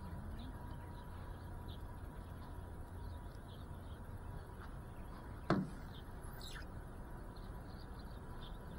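Quiet outdoor ambience with faint, scattered short bird chirps over a low steady rumble and a faint steady tone. There is a single sharp click about five and a half seconds in.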